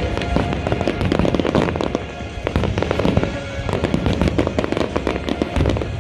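Fireworks display going off continuously: a rapid, dense stream of bangs and crackles with no gap, over music playing in the background.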